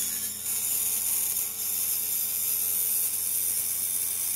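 MicroMark micro table saw running with a steady high-pitched whir as a thin strip of wood is fed through its blade in a rip cut.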